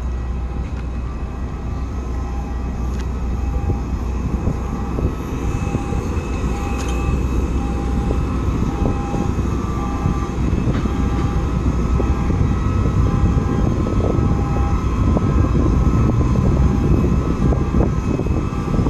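Steady aircraft engine noise across an airport apron, a deep rumble that grows a little louder toward the end.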